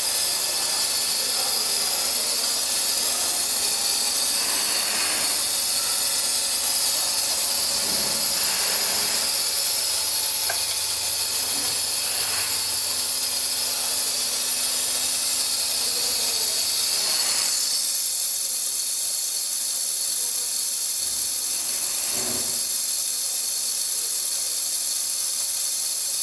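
Pre-filled syringe filling machine running: a steady hiss with a soft knock every few seconds.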